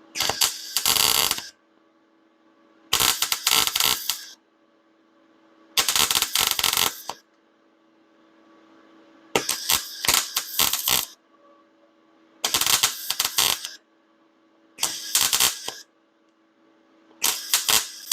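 Arc welder laying short stitch welds on a thin steel bed-frame support: seven crackling bursts of about a second or two each, with short pauses between them and a faint steady hum in the gaps. The thin metal is prone to burning through.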